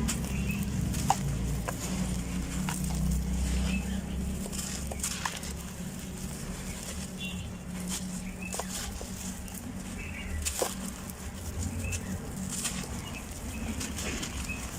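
Dry, grainy black sand-cement shapes crumbling and breaking apart by hand, with irregular crunchy crackles.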